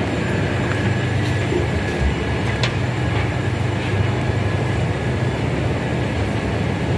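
Escalator running: a steady low mechanical hum with a faint high whine, and one light click about two and a half seconds in.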